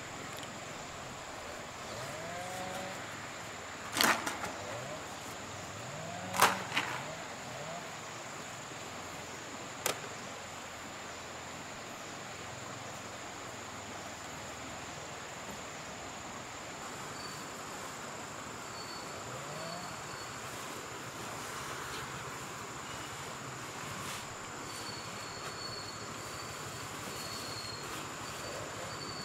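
Steady high insect drone over an even background hiss. Three sharp knocks fall within the first ten seconds, and faint high chirps come near the end.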